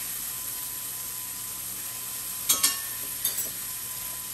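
Bacon sizzling as it fries in a pan, a steady hiss. Two quick pairs of sharp clicks come a little past the middle.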